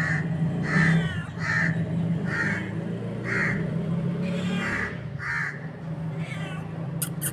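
A run of short animal calls, about one a second, over a steady low hum, with two sharp clicks near the end.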